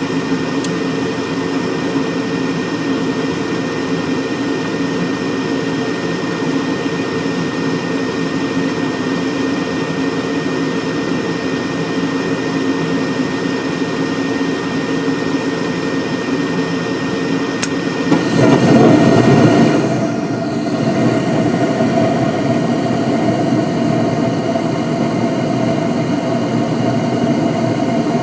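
2001 York gas furnace running, a steady mechanical hum with several fixed tones. About eighteen seconds in there is a louder rush for about two seconds, then the hum settles to a different, higher steady pitch.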